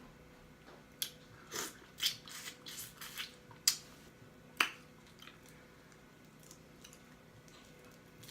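Close-miked eating: a quick run of wet lip smacks and chewing sounds, the two loudest smacks just before and just after the middle, then only faint mouth clicks.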